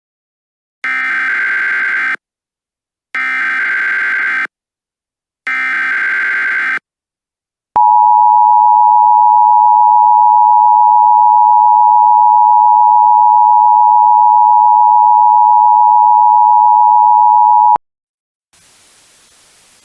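Emergency Alert System tones: three short bursts of digital header data, about a second apart, then the two-tone attention signal (853 and 960 Hz) held steady for about ten seconds before cutting off suddenly. Faint static hiss follows near the end.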